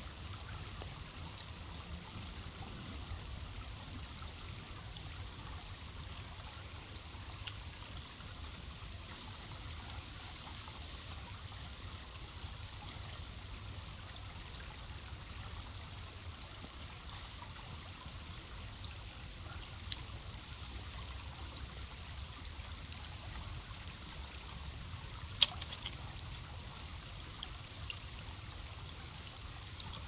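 Shallow stream trickling steadily over rocks, with a low rumble underneath and a few faint high ticks. A single sharp click sounds late on.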